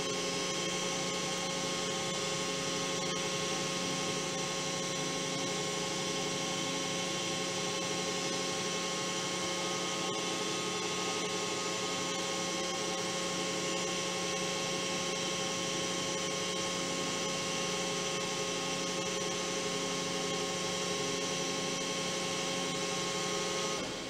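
Metal lathe running with a steady electrical hum made of several unchanging tones. The hum drops away just before the end.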